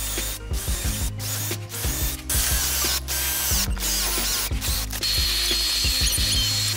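Cordless drill drilling bolt holes through a boat's hatch lid, in repeated short runs, with background music underneath. A steady high whine comes in near the end.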